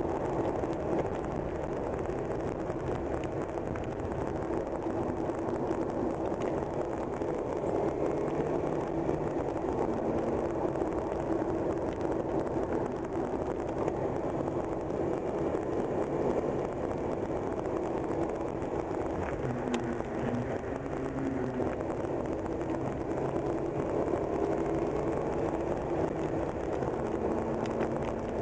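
A car being driven, heard from inside the cabin: steady road and engine noise, with a low hum that shifts in pitch now and then as the speed changes.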